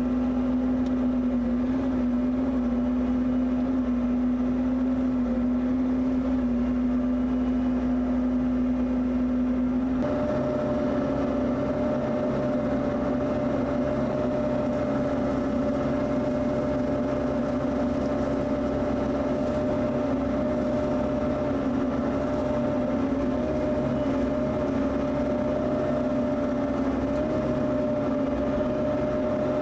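Bobcat E55 mini excavator's diesel engine running under load while its hydraulic rotary brush cutter spins. The steady hum changes abruptly about ten seconds in to a higher steady whine over the engine's drone.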